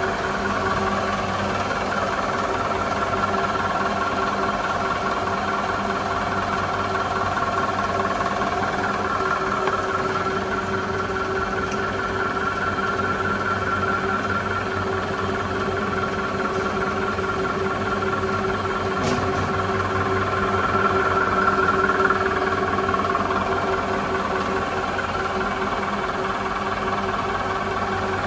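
Label die-cutting and slitting machine running at a steady speed: a constant mechanical hum with several held tones, swelling slightly about twenty seconds in.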